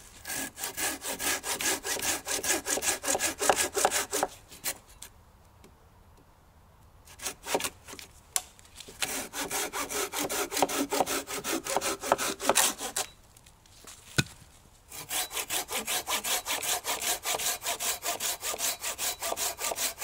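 Small hand saw with a 25 cm fine, hardened-tooth blade cutting a dead branch in quick, even back-and-forth strokes, about four a second, pausing twice for a couple of seconds. A single sharp click in the second pause.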